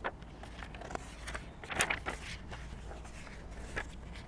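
Paper pages of a picture book rustling and crinkling as they are turned and handled, loudest about two seconds in, over a low steady hum.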